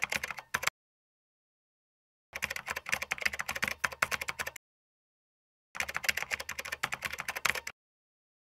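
Rapid clicking of keyboard typing in three runs: a short one at the start, then two of about two seconds each, with dead silence between them.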